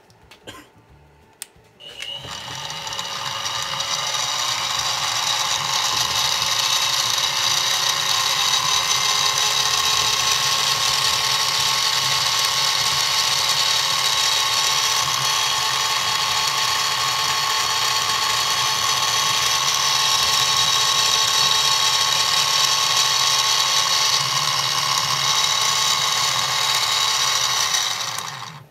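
Spindle motor of a Central Machinery (Harbor Freight 44991) mini milling machine, switched on about two seconds in. It whines higher as it speeds up over the next few seconds, then runs steadily while the 1/8 inch end mill plunges into aluminium. It is switched off just before the end.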